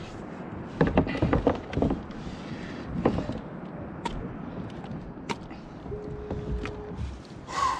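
Handling noise on a plastic kayak deck: scattered knocks and clicks as a landed halibut is fastened to a metal fish clip, with a brief steady tone about six seconds in and a short louder sound at the very end.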